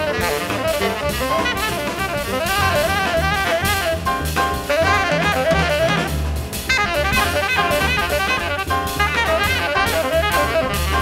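Live jazz from a small orchestra: a tenor saxophone plays a solo line over drum kit and bass.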